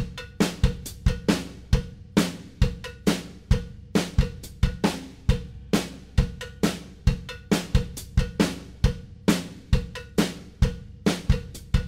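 Background music: a drum-kit beat of snare and bass drum with hi-hat, hitting in a steady rhythm.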